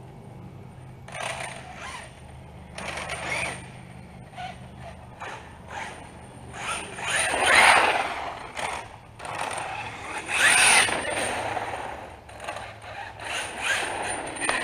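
HPI Baja 5B 1/5-scale RC buggy with a brushless motor on an 8S battery, driven fast on pavement: electric motor whine and tyre noise swelling and fading as it accelerates and runs past, in repeated bursts, loudest twice, around the middle and about two-thirds of the way through.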